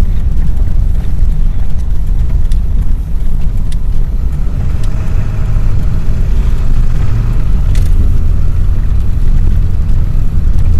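Inside a moving car: steady low rumble of the engine and tyres while driving on a snowy road.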